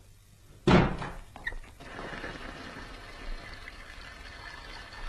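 A loud thunk about a second in, then water starts running steadily from a tap, as into a bath.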